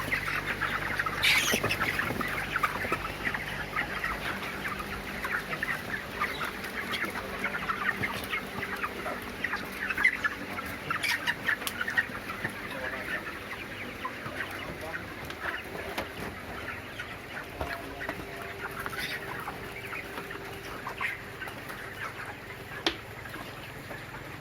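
A flock of 29-day-old broiler chickens, a flock suffering from CRD, clucking and chirping without a break, busier in the first half. A few sharper squawks or knocks stand out, and a steady low hum runs underneath.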